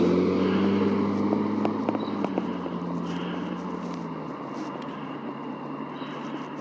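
A convertible sports car pulls away and drives off down the road. Its engine hum and tyre noise fade steadily as it recedes, and the engine note drops away about four seconds in.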